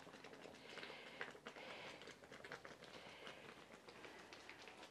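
Near silence, with faint irregular bubbling of tomato broth simmering in a clay pot.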